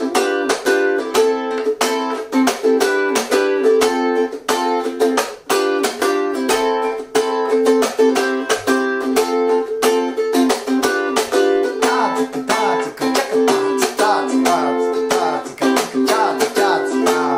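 G-Labo thin-bodied Gazz model ukulele strummed in a slow, steady 16-beat pattern with percussive muted 'chuck' cutting strokes. It plays the chord progression F, G7, Am, Em7, then F, G7, Am, C, then F, G7, F, G7, Am.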